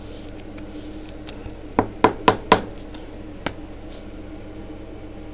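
Four quick, sharp knocks about a quarter second apart, then a single knock about a second later, made while trading cards are handled on a table, over a steady low room hum.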